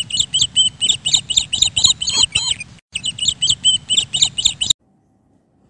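A small bird chirping in a quick run of high chirps, about five a second. The run breaks off briefly near the middle and stops about a second before the end.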